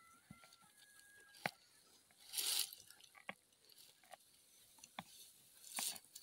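Dry plant stalks crackling and rustling as ropes are pulled tight around a heap of brush, with a louder crunch about two and a half seconds in and another near the end, and scattered small snaps in between.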